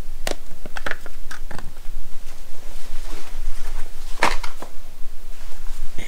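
Handling noise as cordless power tools are picked up, moved about and set down: a few short clicks and knocks, most of them in the first second and a half and one more a little after four seconds, over a steady background hiss.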